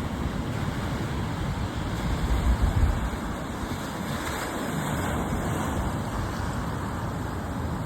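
Sea surf washing in, a steady rushing noise with a heavier low rumble between about two and three seconds in.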